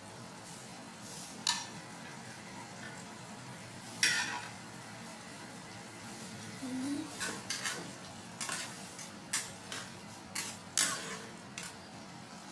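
Metal spatula and tongs clinking and scraping against a wok while stirring sliced bell peppers. Single knocks come about a second and a half and four seconds in, then a quicker run of clinks in the second half.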